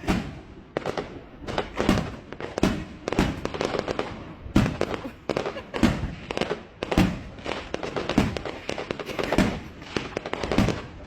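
Fireworks going off in a rapid, irregular string of bangs, about two a second, with crackle between them.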